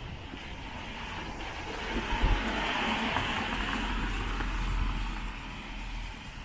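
A road vehicle drives past, its engine and tyre noise swelling about two seconds in and fading away near the end.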